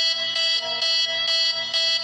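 Emergency-alert alarm played back: a buzzing alarm tone with many overtones, pulsing about three times a second.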